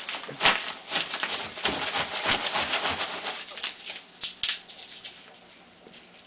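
Styrofoam packing peanuts rustling and crackling as a toddler moves about in them and scoops them up in a cardboard box. The crackling is dense for the first few seconds and thins out after about four seconds.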